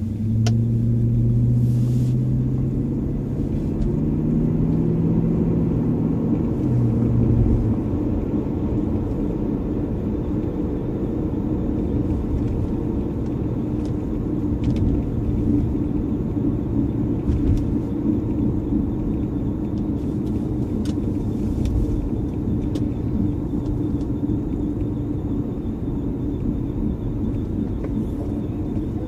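1999 Lexus LS400 running, with a low hum that steps up in pitch over the first several seconds and then an even rumble. A grinding noise from the car comes in a little past halfway.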